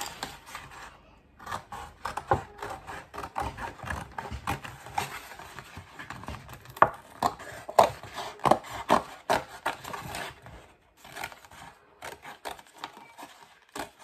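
Scissors cutting through the thin chipboard of a cereal box, a long run of irregular snips that thins out near the end, with the cardboard rustling as it is handled.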